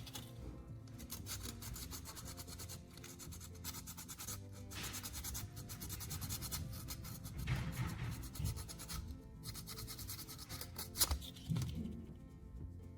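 Sandpaper rubbing in irregular strokes on a soldering iron's metal tip, sanding a small spot down to bare metal. Soft background music plays under it.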